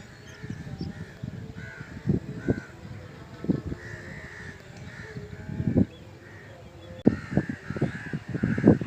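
Birds calling over and over in short runs of harsh, arched calls, about two a second. Low thumps break in throughout and are louder than the calls.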